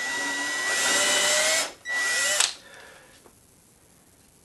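Cordless drill boring into a small wooden frame piece in two bursts: a run of about a second and a half, then a short half-second burst. The motor's whine rises in pitch as it speeds up.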